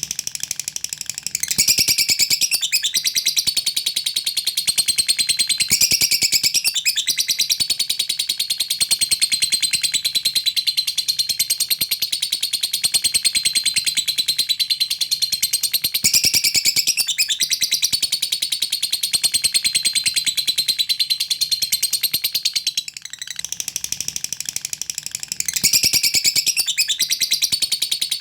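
Lovebird's long 'ngekek' chatter: a very fast, high-pitched ticking trill that runs almost without a break, dipping in loudness for a couple of seconds past the three-quarter mark. This long chatter is the call keepers play to provoke other lovebirds into answering.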